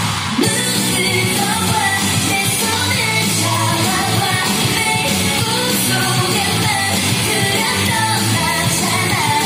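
Korean pop dance remix with a singing voice and a steady beat, played loud over a sound system.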